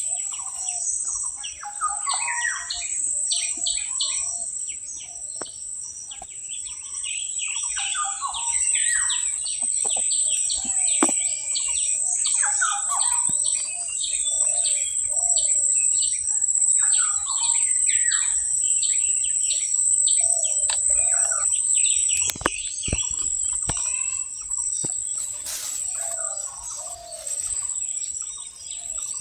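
Small birds chirping and calling over and over, over a steady high-pitched insect drone.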